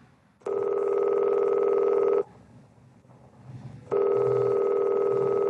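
Telephone ringing tone as heard down the line by the caller: two rings, each a steady tone of about two seconds with a short pause between, as the call waits for the answering machine to pick up.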